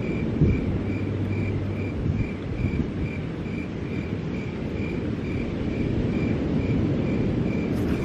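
An insect chirping at night in an even rhythm, about two and a half short high chirps a second, over a steady low rumble.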